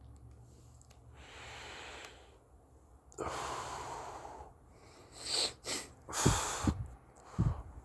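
A person breathing heavily: a faint long breath, then a louder long one, then three short forceful breaths near the end.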